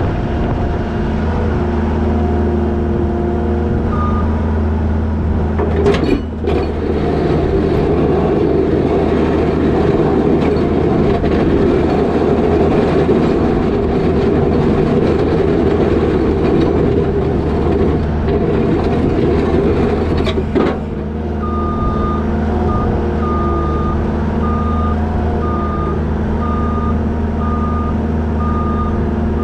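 New Holland L220 skid steer's diesel engine running steadily, with a rougher, louder stretch of about fifteen seconds in the middle, which fits the machine working harder. In the last third its backup alarm beeps repeatedly as it reverses.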